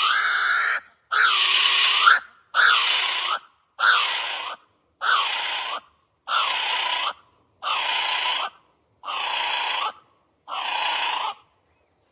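Kiwi calling: a run of about nine shrill cries, each under a second long, repeated a little less than once a second, with each cry sweeping in pitch.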